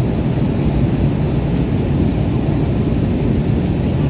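Steady low rumble inside the cabin of an Airbus A320ceo airliner in flight: engine and airflow noise.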